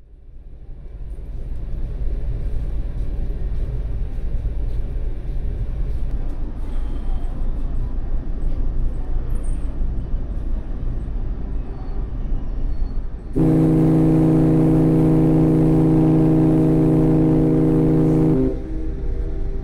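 A ship's horn sounds one long, steady blast of about five seconds, starting and stopping abruptly, over a steady low rumble.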